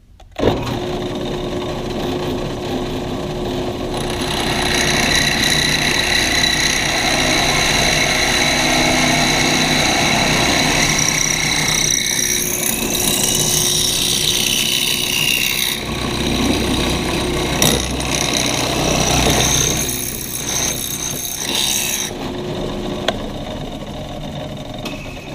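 Drill press switching on and running with a steady motor hum, then the largest drill bit of the job cutting through a metal table-leg tube, the cutting noise louder and squealing at times in the middle. The cutting eases off a few seconds before the end while the motor keeps running.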